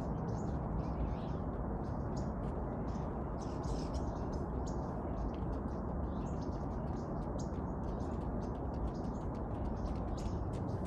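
Small birds chirping, many short high notes scattered throughout, over a steady low background rumble.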